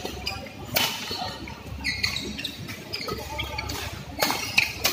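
Badminton rackets striking the shuttlecock in a doubles rally: several sharp cracks, two of them close together near the end, with short squeaks of shoes on the court floor between.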